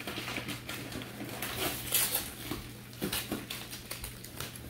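Small cosmetic packaging being handled and opened by hand: a run of quick, irregular crinkles and clicks.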